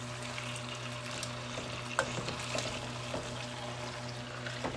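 Herb-seasoned chicken breasts sizzling gently in a frying pan, with a light click about two seconds in as metal tongs turn a piece.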